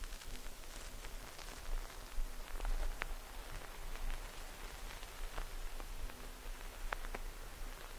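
Two layered noise tracks from an Akai Force playing on their own: a steady hiss scattered with crackles and ticks, like rain or static, used as the background bed of an ambient dub-techno track.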